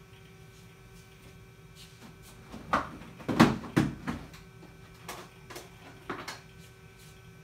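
Steady hum of a running compact Macintosh SE, broken by a cluster of loud knocks and clunks about three to four seconds in and a few fainter knocks later.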